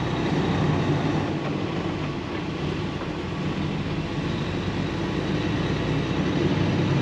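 2016 Western Star semi truck's diesel engine heard from inside the cab, running steadily as the truck pulls through a lot at low speed and growing louder near the end.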